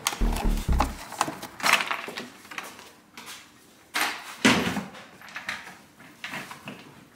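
Knocks, clacks and scrapes of a Piaggio SKR 125 scooter's seat and black plastic under-seat bin being lifted off and carried away, with a louder thump about four and a half seconds in.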